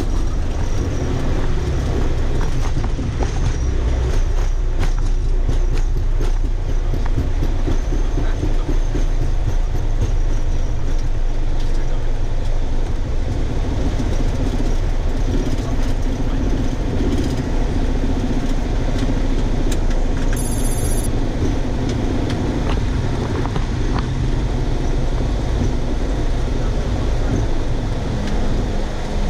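Boeing 737-400 flight deck during the landing roll-out and slowing: a loud, steady rumble of the wheels rolling on the runway and of the airframe, with the engines back from reverse thrust. A brief high-pitched chirp sounds about twenty seconds in.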